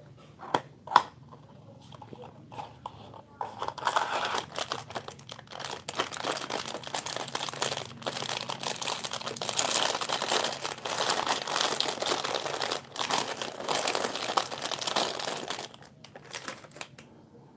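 Clear plastic bag of small toy building bricks crinkling as it is handled and shaken, after a few sharp clicks in the first second or so.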